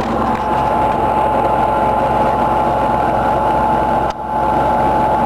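A steady, engine-like mechanical drone with a constant whine running through it, dipping briefly about four seconds in.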